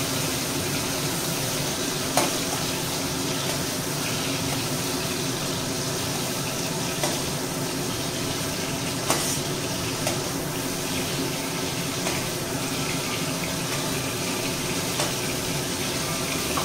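Hot mustard oil sizzling steadily in a kadai after frying shrimp, with a few light clicks of a metal spatula against the pan and bowl.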